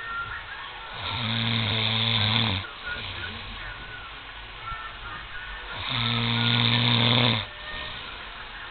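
A man snoring: two long, deep, rattling snores about five seconds apart, each lasting about a second and a half.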